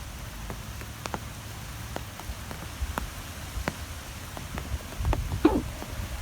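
Wind blowing in low gusts, with scattered light ticks throughout. A brief wavering sound comes about five and a half seconds in.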